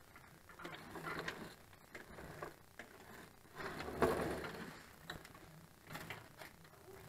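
Hand tools and metal parts being worked under a backhoe during a hydraulic pump removal: irregular clinks, taps and scrapes, with a louder scrape and knock about four seconds in.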